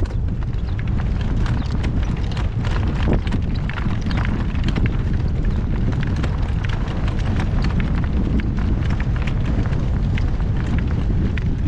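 Horse trotting in harness, drawing a cart: a quick run of hoofbeats over a steady low rumble.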